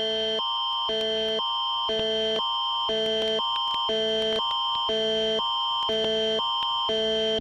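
Canadian Alerting Attention Signal, the Alert Ready emergency alert tone. A higher chord and a lower chord alternate about every half second over a steady high tone. It announces an emergency alert, here a test message.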